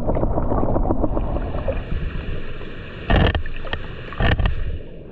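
Muffled water sound recorded underwater: a low churning rumble with scattered bubbling clicks, then two short, louder whooshing knocks, about three seconds in and again about a second later.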